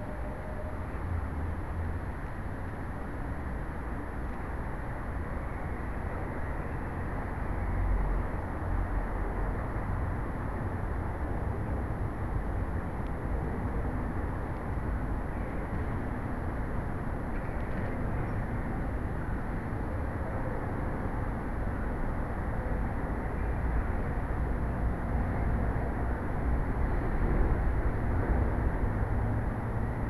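Steady rumbling noise on a small cat-collar camera's microphone, uneven in the low end, with a faint high steady whine from the camera.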